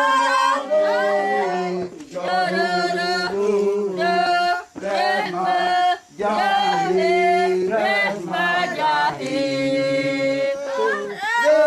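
Several voices singing a Uitoto ritual chant together, in sung phrases with brief breaks between them.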